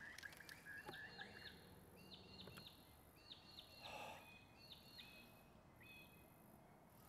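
Near silence with faint bird calls: short chirps in clusters of three or four, repeating about every second. A rapid trill fades out about a second and a half in.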